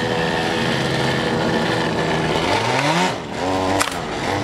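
Small go-kart engine running steadily at idle, then revving up twice with rising pitch as the kart pulls away. A sharp click comes just before the end.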